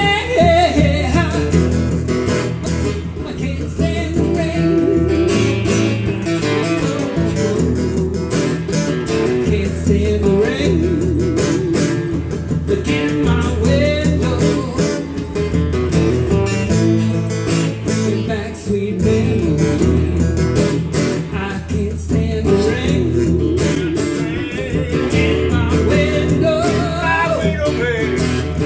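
A strummed acoustic guitar playing a song live, with a man singing over it in phrases into a microphone.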